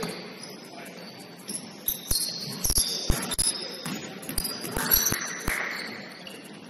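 Basketball thudding on a hardwood gym court, with a quick run of bounces in the middle and basketball shoes squeaking in short, high chirps during play.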